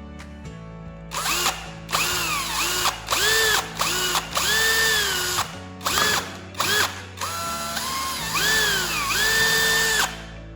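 Electric drill run in about ten short trigger bursts, its motor whine rising as it spins up, holding briefly, then falling as it is released, with a rough grinding noise under each burst.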